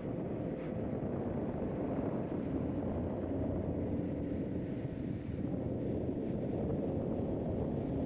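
Rough sea surf breaking and washing over shoreline rocks as a steady low rumble, with wind buffeting the microphone.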